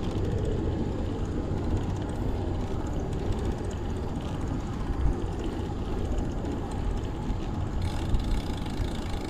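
Wind rumbling on the microphone of a camera riding along on a bicycle, a steady low rumble with one brief bump about five seconds in.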